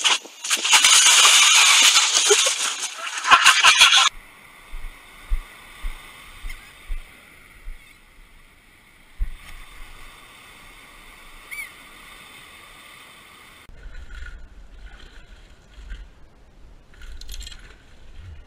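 A person falling off a rock ledge into the sea: a loud splash and sloshing water for about three seconds. After that, only faint water sounds with scattered low thuds.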